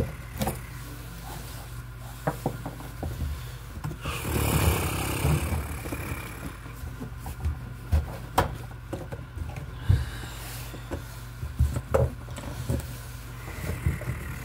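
Hands handling electrical cables in a metal junction box: scattered clicks and knocks of wire against metal, with a longer stretch of scraping and rustling about four seconds in.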